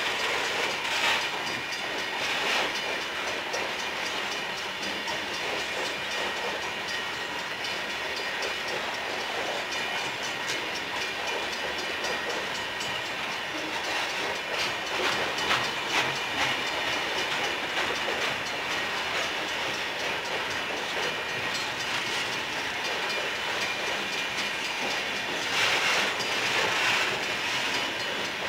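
A freight train of covered hopper cars rolling past close by: steady wheel-on-rail noise, with louder clatters about halfway through and near the end.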